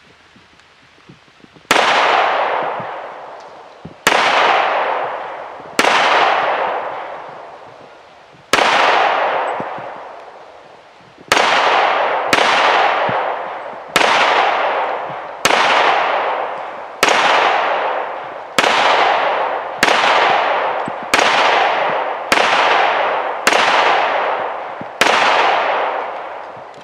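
FN FNX-45 Tactical .45 ACP pistol firing a string of fifteen shots, each with a long echoing tail. The first few come two to three seconds apart, then the pace quickens to about one shot a second.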